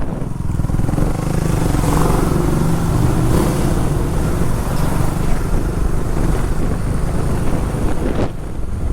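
Wind buffeting the microphone of a moving motorcycle, with the engine running underneath; the wind noise is the problem the rider wants to fix.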